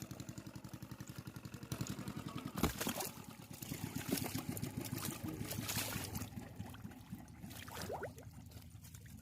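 A small engine running with a steady rapid chug, joined about two and a half seconds in by a sharp knock and then splashing, trickling water that fades near the end.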